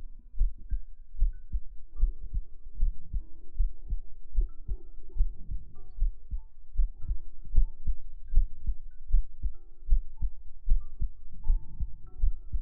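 Human heartbeat heard up close: a steady rhythm of low, muffled thumps. Soft, scattered high notes sound faintly above it.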